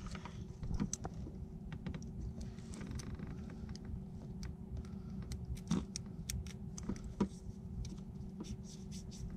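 Small metallic clicks and scrapes of a feeler gauge being slid between the two halves of a boat's propeller-shaft coupler, checking the gap for engine alignment, with a couple of sharper clicks partway through. A faint steady hum and low rumble sit underneath.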